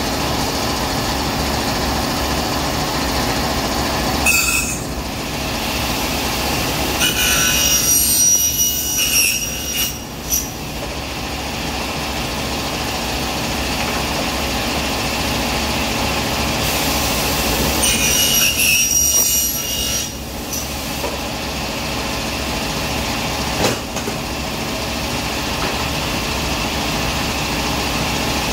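Pneumatic aluminium-cutting saw running steadily, its circular blade screeching through aluminium profile twice, each cut lasting two to three seconds, about seven seconds in and again near twenty seconds. A few short sharp sounds come between the cuts.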